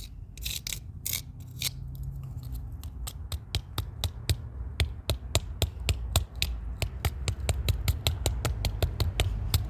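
Sharp, hard strikes on a plastic RFID lock keypad as it is smashed apart, a few at first, then a fast, even run of about four blows a second from about three seconds in, over a steady low rumble.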